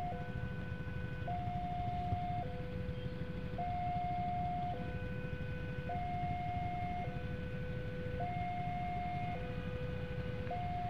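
Railway level-crossing warning alarm sounding two alternating electronic tones, a higher and a lower note each held just over a second, signalling that a train is approaching and the barrier is down. Under it, the low steady rumble of idling motorcycle engines waiting at the crossing.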